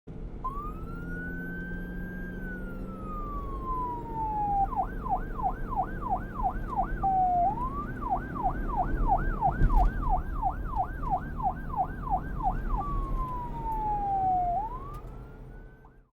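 Police car siren alternating between a slow rising and falling wail and a fast yelp of about three sweeps a second, over the low rumble of a vehicle. There is one sharp knock about ten seconds in.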